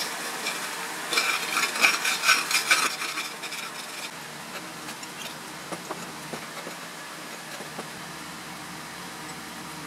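Brittle dried cakes of basic copper(II) carbonate being scraped and crushed against a glass pan, a gritty crunching scrape about one to three seconds in, then fainter with a few light clicks.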